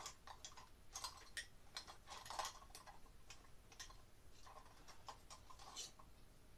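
Faint, irregular clicks and light taps from hands working a cable and its fastening at the ceiling, some coming in small clusters.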